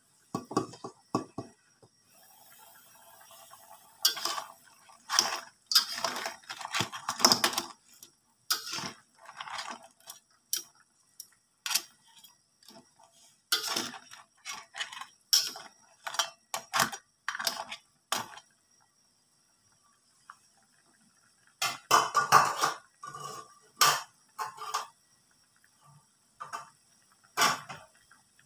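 Metal spatula scraping and clanking against a steel wok in irregular bursts as crabs in a thick sauce are stirred, with a metal pot lid clattering as it is taken off.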